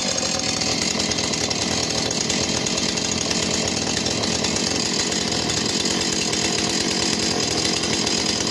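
Husqvarna 450e chainsaw's 50.2 cc two-stroke engine running steadily as it warms up after a cold start.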